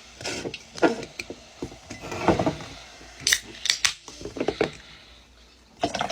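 Aluminium soda cans and drinking glasses being handled on a table: a scattered run of light knocks and clinks, a few sharp and ringing. Near the end, soda starts pouring into a glass.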